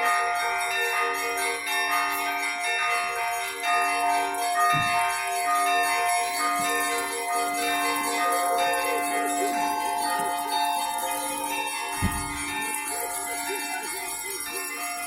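Russian Orthodox church bells rung together in a festive peal: several bells of different pitch strike and ring on in overlapping, sustained tones. A dull low thump comes about 5 s in and again about 12 s in.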